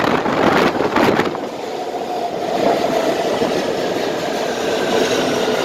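New York City Subway L train pulling into an underground station. A loud rumble and clatter of wheels over the rail joints for about the first second gives way to a softer running sound with a steady whine.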